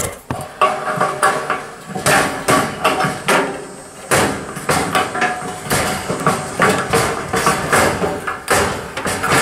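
Screwdriver working on the sheet-metal heating-element housing of a Samsung DV40J3000EW dryer, taking out the screws that hold the thermostat and limit switch: an irregular run of metallic clicks and knocks, several a second.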